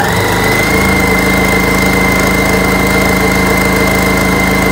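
Janome 1600P-QC straight-stitch sewing machine sewing at full speed. The motor winds up in the first half second, then holds a steady high whine over a fast, even needle chatter.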